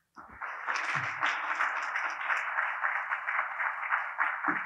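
Audience applauding, building up within the first half-second and then holding steady.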